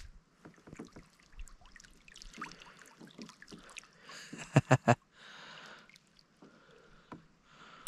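Live shad flipping and splashing in a little water: scattered small splashes and trickles, with a quick run of three sharp slaps about four and a half seconds in.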